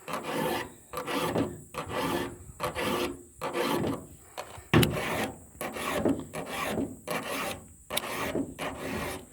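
Hand file sharpening the cutter teeth of a chainsaw chain, steel rasping on steel in steady strokes about one a second. There is a sharp click about halfway through.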